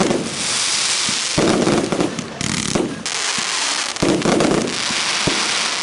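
Compound firework cake (Verbundfeuerwerk) firing: a run of shots with dense crackling in between. Heavier bangs land about a second and a half in and again about four seconds in.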